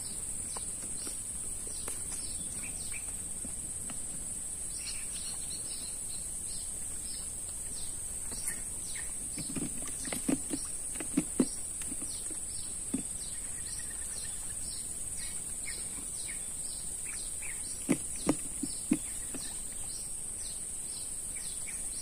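Steady high-pitched insect drone from the swamp forest, with a bird calling over it in short, evenly repeated chirps, about two a second. A few dull knocks come around halfway and again near the end.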